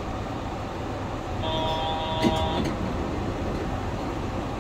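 Steady running noise of a Yurikamome rubber-tyred automated train in motion. About a second and a half in, a brief steady tone with several pitches sounds for about a second and then stops.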